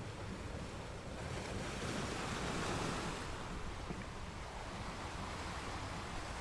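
Ocean waves breaking and washing on a sand beach; one wave swells and crashes about two seconds in, then the surf eases back.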